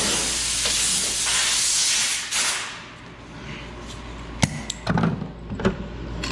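Compressed-air blow gun hissing in a steady blast, blowing dried compound off a buffing pad; the blast cuts off about two and a half seconds in. A few sharp clicks and knocks follow near the end.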